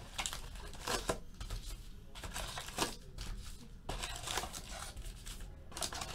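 Wrapped trading-card packs being pulled out of a cardboard hobby box and stacked: an irregular run of light crinkles, rustles and small taps.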